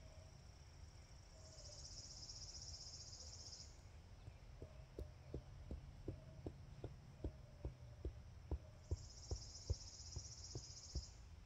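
A mallet driving a tent stake into the ground: a steady run of dull knocks, about three a second, growing louder, starting a few seconds in. A high insect buzz rises and falls twice, each spell lasting about two seconds.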